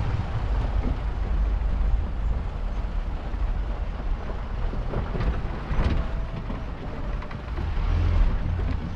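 4x4 truck driving over a rough off-road trail: a steady low rumble with scattered knocks and rattles.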